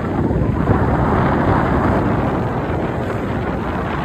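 Wind buffeting the microphone: a loud, steady, choppy rumble with no clear engine tone.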